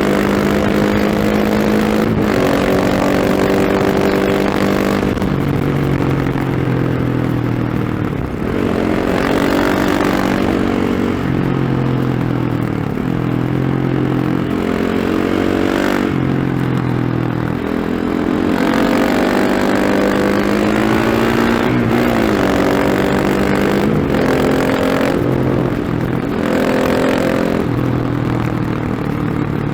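KTM 690 SMC-R single-cylinder engine through a Remus slip-on exhaust with its dB killer fitted, ridden hard: it revs up and drops back repeatedly through gear changes and off-throttle moments, with a steady rush of riding noise.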